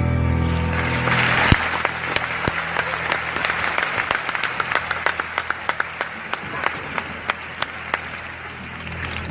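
Theatre audience applauding after a song: the clapping swells about a second in over the fading last held chord of the orchestra, then thins to scattered individual claps and grows quieter.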